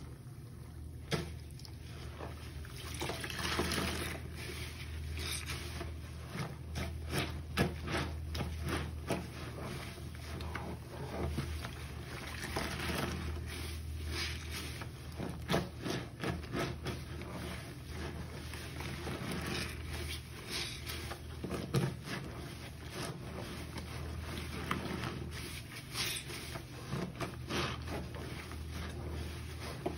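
A sponge squeezed and kneaded by rubber-gloved hands in a plastic basin of foamy soapy water: irregular wet squelches and crackling suds, over a steady low hum.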